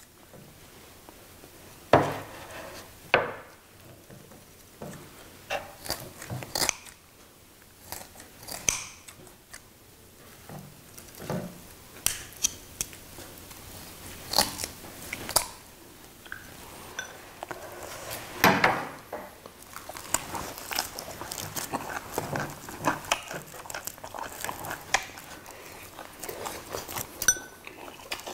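Scattered sharp clicks and knocks of metal scissors, tongs and chopsticks against plates as braised dried pollack is cut and served, giving way to closer biting and chewing of the food in the second half.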